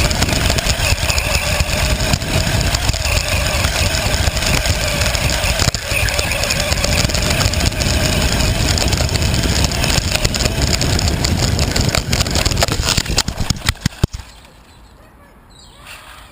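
Remote-control car running at speed, heard from the camera on board: a steady motor whine over dense rushing noise from wind and the ground. About fourteen seconds in, a quick run of knocks, then the noise drops away suddenly.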